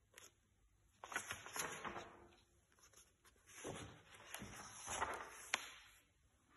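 Paper pages of a handmade watercolour book being turned by hand: two spells of paper rustling and crinkling, with a few sharp clicks as the sheets flip over.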